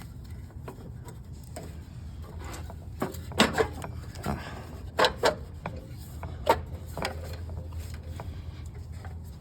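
Snowblower engine cover being worked back into place over the engine: irregular clunks and knocks with some rubbing, the loudest coming between about three and seven seconds in, over a low steady hum.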